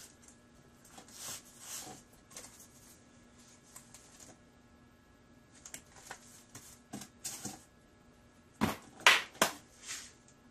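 Books being handled on a wooden shelf: pulled out and slid back, with paper pages riffled. It comes as a series of short rustles and light knocks, the loudest cluster about nine seconds in.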